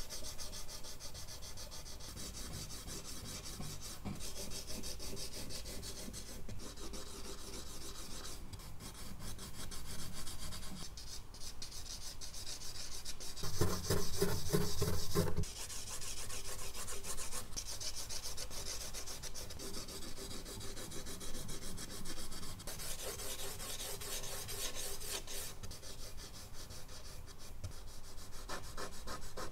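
Charcoal sticks scratching and rubbing across medium-surface drawing paper in quick repeated strokes, with brief pauses between passes. About fourteen seconds in, the rubbing turns louder and deeper for about two seconds.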